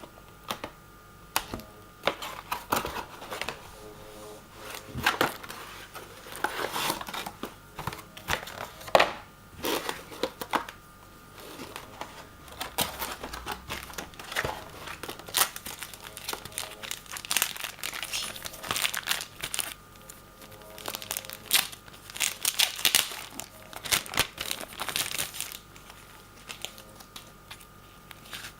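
Product packaging being handled and opened: irregular crinkling and crackling, with some tearing, as the wrapping around a cordless mouse is pulled off.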